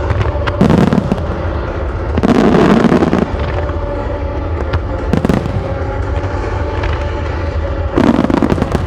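Aerial firework shells bursting loudly, four times: a burst about a second in, a longer crackling burst around two to three seconds, a sharp single bang near the middle, and another burst near the end.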